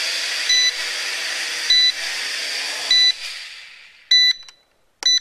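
Sharper Image DX-4 quadcopter auto-landing: its small motors and propellers whine steadily while a short beep sounds about every second and a quarter, then the motors wind down and stop after touchdown, around three to four seconds in. Two sharper beeps with clicks follow near the end.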